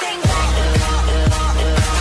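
Sped-up electronic dance track. Its heavy bass line and kick drum come in about a quarter second in, after a short build, and the kick hits about twice a second.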